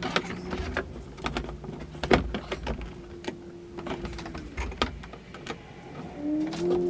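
Cordless drill running in two short spurts, the second one spinning up, amid clicks and knocks of tools and hardware being handled.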